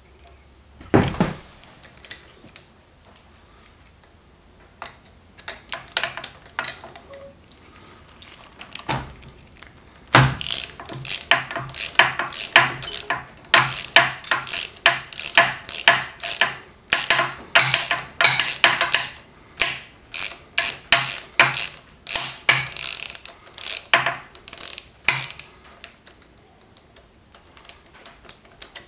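Hand ratchet wrench clicking, a few scattered strokes at first, then about ten seconds in a long spell of quick back-and-forth ratcheting in short bursts, backing out the bolts of a Harley-Davidson Sportster 48's front fender bracket.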